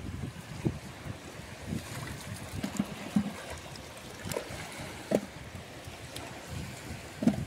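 Steady wash of wind and shallow water at a pebbly shoreline, with a few soft knocks and wet slaps as fresh-caught fish are handled on the wet stones.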